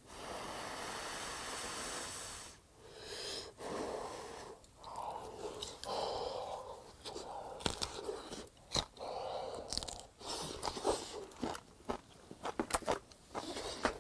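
A person chewing grilled freshwater eel close to the microphone: wet mouth noises and lip smacks, with a breathy hiss for the first two seconds or so and more and more short clicks toward the end.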